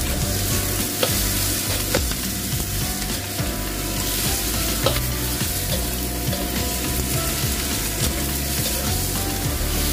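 Chicken pieces and sliced onion sizzling in a hot wok as they are stirred with a metal ladle, with a few sharp clinks of the ladle against the wok about one, two and five seconds in.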